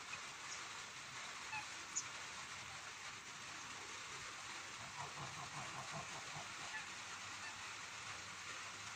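Light rain falling with a steady hiss, and domestic white geese giving a run of faint, short honks about five to six and a half seconds in.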